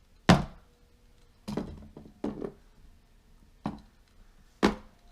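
Toy monster truck knocking and bouncing against a plastic playset's ramps: about five separate knocks at irregular intervals, the first the loudest.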